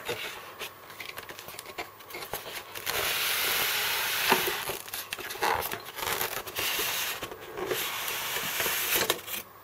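Polystyrene foam packaging insert scraping and rubbing against cardboard as it is slid out of its box, with rustling and light knocks of the packaging being handled. The rubbing gets louder about three seconds in and comes and goes after that.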